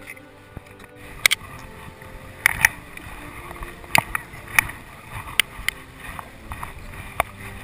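Paddling a canoe or kayak: water swishing along the boat, with about eight sharp knocks at uneven spacing, about one a second, from the paddle striking the hull.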